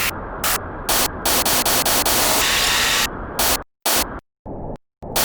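Static noise, hiss bursting in and out over a rough low rumble, breaking up into short chopped bursts with sudden cut-outs in the second half.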